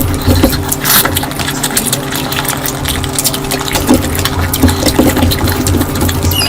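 Close-miked wet chewing and mouth sounds of someone eating curry, with scattered short clicks, over a steady low hum.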